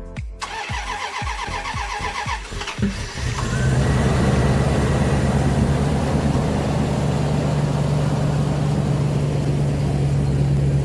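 A 5.2-liter V8 in a 1997 Dodge Dakota cranking with evenly spaced pulses, then catching about three seconds in and settling into a steady idle. This is its first start after a new fuel line was fitted.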